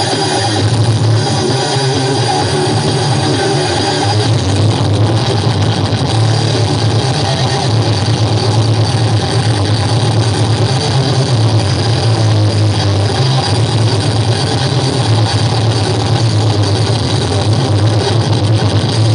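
Music with a heavy bass line played loud through a miniature sound-system speaker stack, running steadily throughout.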